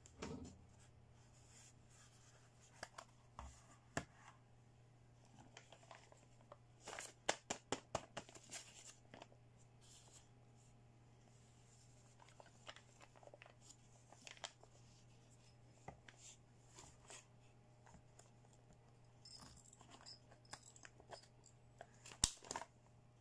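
Scattered light clicks and taps of small hard plastic toys being handled, with a clear plastic packaging bag crinkling near the end.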